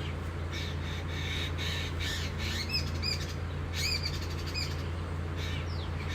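Crows cawing, a run of harsh repeated calls in the middle of the stretch, over a steady low hum.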